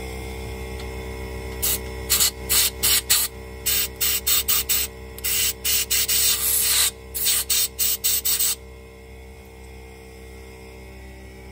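Compressed air hissing from an air blow gun in about seventeen short, quick blasts, one of them held for about a second, blowing debris out of a carburettor's fuel-solenoid port.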